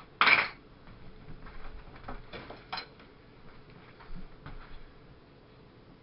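Bicycle parts and tools being handled: one short loud scrape near the start, then a scatter of light metallic clinks and knocks.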